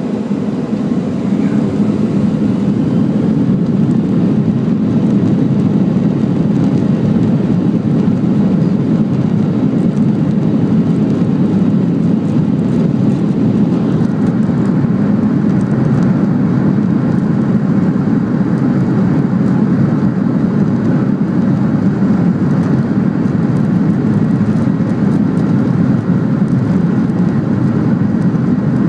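Steady low drone inside the cabin of a Boeing 737 taxiing: the jet engines at taxi power and the rolling airframe, heard from a seat over the wing.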